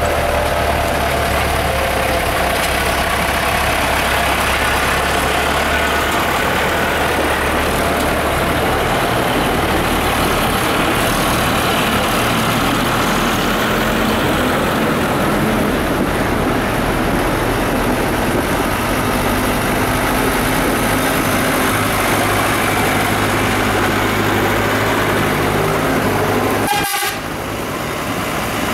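Diesel farm tractor engines running as a line of tractors drives slowly past one after another, the engine note shifting as each passes. There is a short break near the end.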